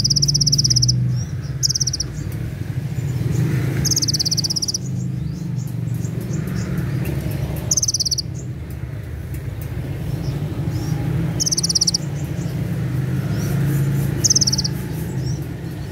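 Purple-throated sunbird (kolibri ninja) singing short, high, rapid buzzy trills, the 'tembakan cililin' shots, about six bursts spaced a few seconds apart. A steady low rumble runs underneath.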